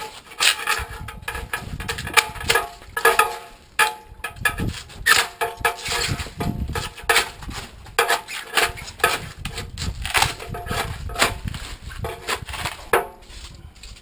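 Irregular knocking and scraping on a steel water-boiler tank as its foam insulation is stripped off, with some strokes leaving a short metallic ring.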